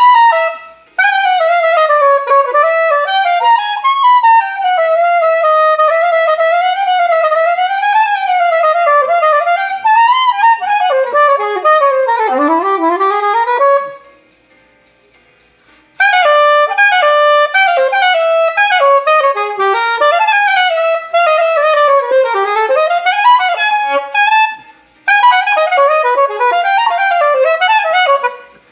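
A solo wind instrument playing a melody of quick running notes, one note at a time. It breaks off for about two seconds about halfway through and briefly again near the end.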